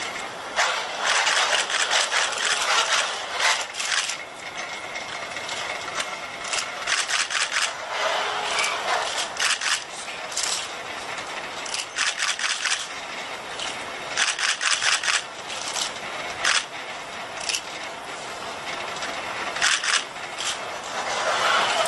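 HRP-4 humanoid robot's joint servo motors and gearing clicking and rattling in repeated bursts, a few seconds apart, as it moves its arms.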